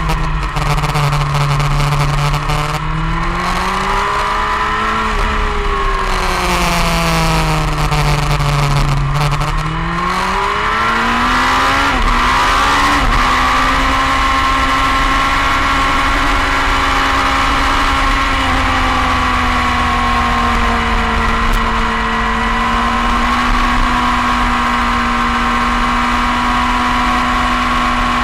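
Onboard sound of a motorcycle engine at speed on a race track: its pitch sinks and climbs back twice through corners, then steps up through two quick gear changes and holds a steady, higher note down the straight.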